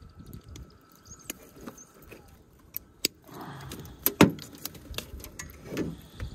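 Handling noise from unhooking a carp with pliers in an aluminium boat: scattered small metallic clicks and knocks, the loudest about four seconds in, over a low rustle of handling.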